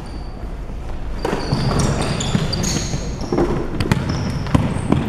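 Basketball play on an indoor hardwood court after a jump ball: from about a second in, sneakers squeak in short high chirps as players run, and the ball bounces with sharp knocks near the end.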